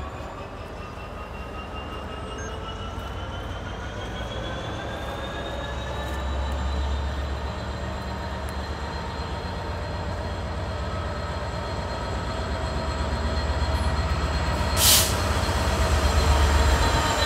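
Class 66 diesel-electric locomotive, its EMD two-stroke V12 diesel, running slowly towards the listener: a steady low throb that grows louder, with a whine rising in pitch over the first half and then holding. A short, loud hiss about fifteen seconds in.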